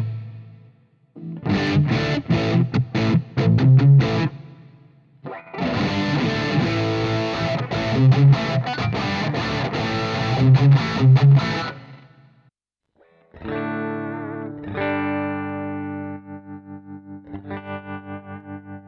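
Electric guitar played through a Fractal Audio FM9 amp modeler preset. It opens with a heavily distorted, choppy riff full of hard stops. After a brief pause about twelve seconds in, it moves to ringing sustained chords with a wavering modulation effect that pulse in level toward the end.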